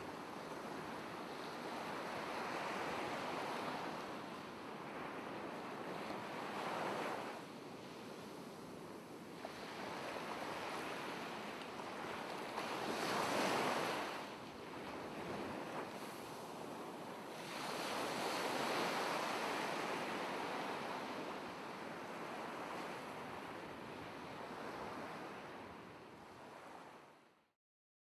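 Ocean surf: waves washing in and ebbing, swelling every four to six seconds, then fading out near the end.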